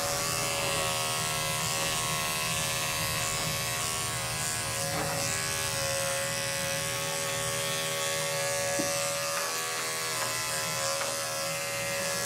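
Corded electric dog clippers running with a steady buzz as they shave matted coat off a Maltipoo's body close to the skin.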